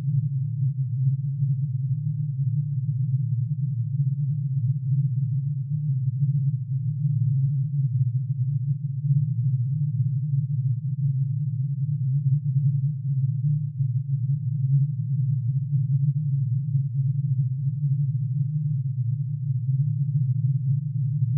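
Synthesised tone made from plutonium's atomic emission spectrum: many sine waves, one per spectral line, pitch-shifted into hearing and summed. The result is a steady, dense low drone with a fluttering, beating texture.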